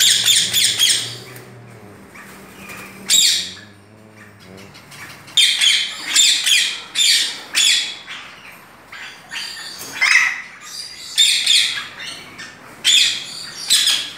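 Caged parakeets squawking: harsh, shrill screeches in quick runs of short calls, a run at the start, a single call about three seconds in, then calls following one another again from about five seconds in.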